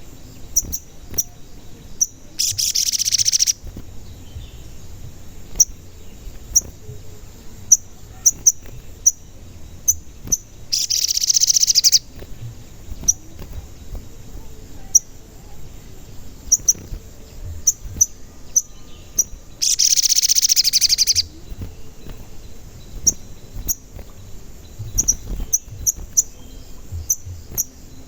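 A sogon bird calling: short, sharp, high 'cuit' chirps scattered throughout, broken three times by a loud rapid trill lasting a second or so.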